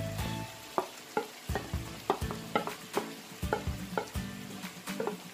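Diced chicken and vegetables sizzling in a hot frying pan as a flour mixture is poured in, with a wooden spatula stirring and knocking against the pan in irregular taps, about two a second.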